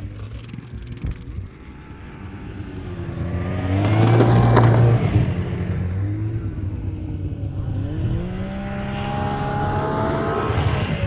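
Snowmobile engine accelerating and passing close, its pitch rising and loudest about four to five seconds in; a second snowmobile then revs up with rising pitch toward the end.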